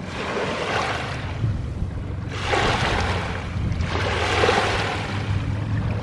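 Small lake waves lapping onto a pebbly shore, washing in with a hiss in repeated surges, one every second or two. A low steady rumble runs underneath.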